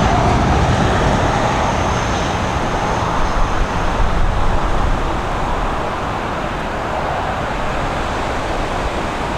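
Strong wind rushing and buffeting across the microphone, a steady loud roar that eases slightly toward the end, with a faint high whine underneath.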